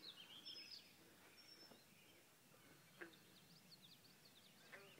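Faint bird calls: scattered short high chirps and whistles over a quiet outdoor background, with a brief sharper call about three seconds in.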